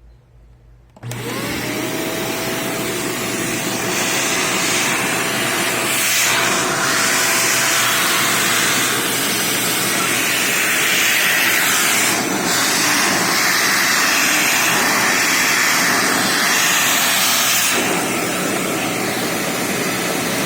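Bissell Powerforce bagless canister vacuum cleaner switched on about a second in, its motor whine rising to speed, then running with a loud steady hiss of suction that shifts in strength a few times. Near the end it is switched off and the whine starts to wind down.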